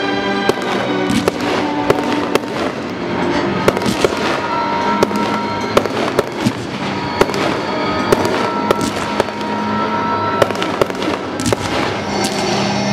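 Aerial fireworks bursting in rapid, uneven succession: sharp reports with crackle between them, with a dense flurry near the end. Music plays underneath throughout.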